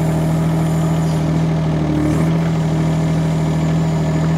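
Mini excavator's diesel engine running steadily at a constant speed, heard from the operator's seat, while the hydraulic arm works a ripper tine into the soil.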